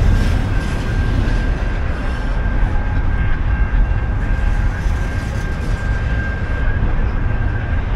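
A train passing: a loud, steady low rumble with a thin, steady high whine over it.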